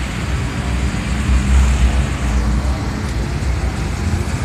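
Slow, dense street traffic passing close by: a steady low engine rumble from a box truck, cars and motorcycles, loudest about a second and a half in.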